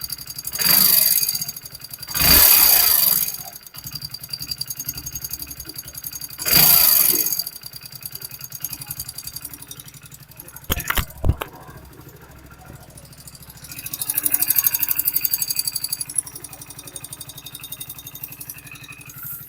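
Hero Splendor Plus BS6's single-cylinder engine running with a rattling, ticking noise, revved four times, the last rev held longest, with a few sharp clicks in between. The rattle comes from the tappets, which the mechanic finds out of adjustment (excess valve clearance) rather than from the piston rings or timing chain.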